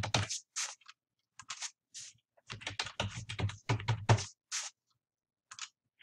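Typing on a computer keyboard: a few scattered keystrokes, then a quick run of keys from about two and a half seconds in, then a couple of fainter clicks near the end.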